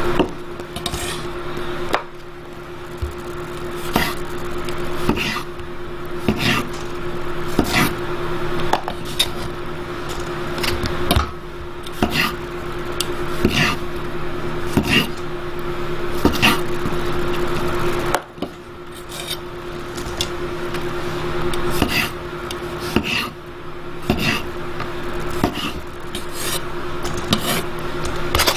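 Kitchen utensils knocking and scraping against a pot or board, roughly once a second, over a steady hum, with two short breaks.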